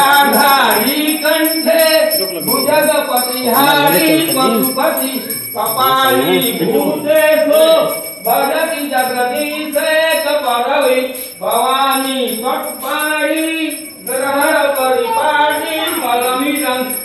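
A Hindu devotional aarti hymn being sung, with a small bell ringing along.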